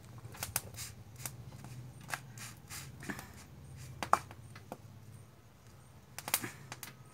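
Scattered light clicks, taps and rustles of a cloth and roti being handled on an iron tawa, as the pan is wiped and the roti pressed, with a faint steady low hum underneath.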